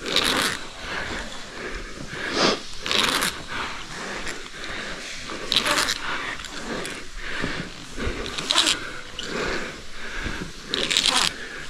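Rope-climbing gear on a caving rope: short zipping scrapes as the ascenders are pushed up the rope during the climb, repeating every two to three seconds.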